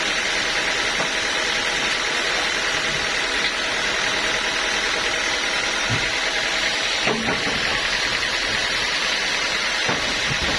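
Sawmill machinery running steadily, a constant mechanical hum and hiss with a few faint knocks.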